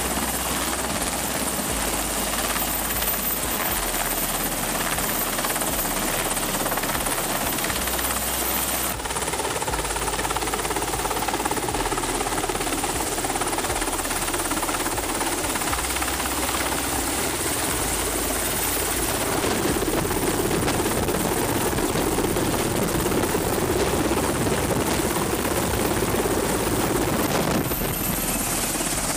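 Navy Seahawk helicopter close by, its rotors and twin turbine engines running as it hovers over and settles onto a ship's flight deck: a steady, loud noise whose tone shifts abruptly a few times.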